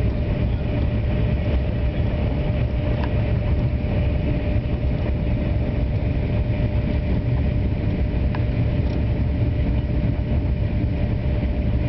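Thalys high-speed train running steadily at speed: a constant low rumble with a steady hum over it.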